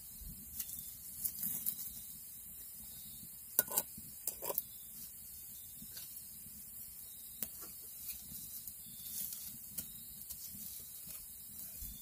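Wood fire crackling in a stone fireplace, with scattered small pops and a couple of louder knocks about four seconds in as a skillet and sticks are handled at the fire.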